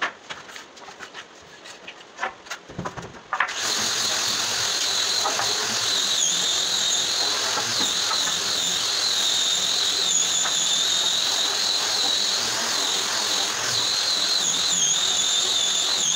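Light knocks of wooden battens being handled, then about three and a half seconds in a power tool starts running steadily, with a high wavering whine that carries on.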